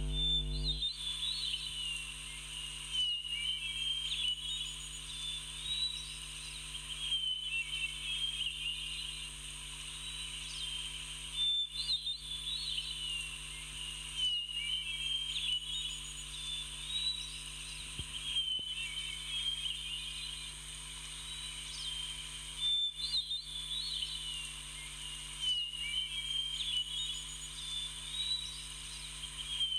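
Small birds chirping and twittering over a steady background hiss, a looped nature-ambience track whose pattern repeats about every eleven seconds.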